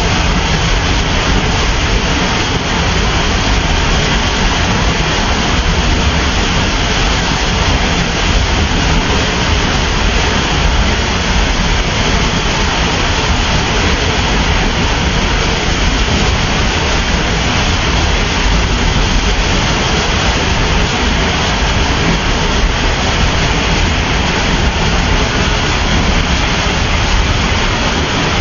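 Waterfall: a loud, steady rush of falling water with no let-up.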